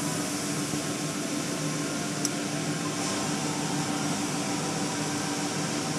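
Automatic car wash heard from inside the car: a steady rush of water spray and cloth washing against the body over a low machinery hum, with one brief click a little over two seconds in.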